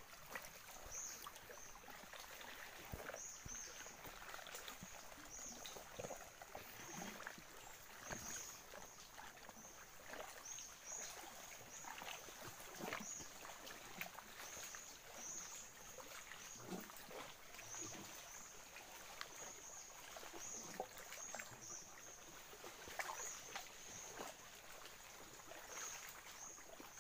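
Faint shallow-water ambience: repeated short, high-pitched chirps from wildlife, with light water sounds and small scattered splashes from the wading anglers and their lines.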